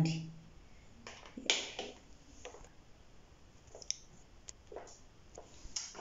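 Light, scattered clicks and taps of a small handheld heat sealer and plastic-wrapped packets being handled and set down on a countertop, the loudest about one and a half seconds in.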